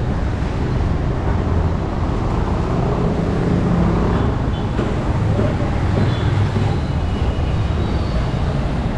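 City street traffic: motorcycles and cars passing on the road, a steady rumble of engines and tyres.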